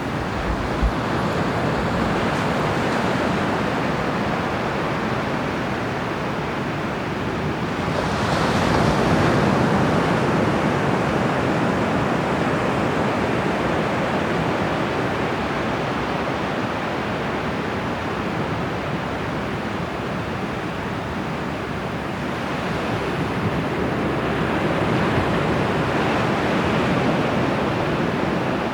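Bay of Bengal surf breaking on the beach: a steady wash of waves that swells twice, once about a third of the way in and again near the end, with some wind on the microphone.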